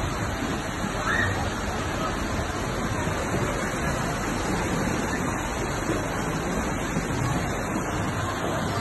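Tsunami floodwater surging down a street, a steady rushing of water with no break.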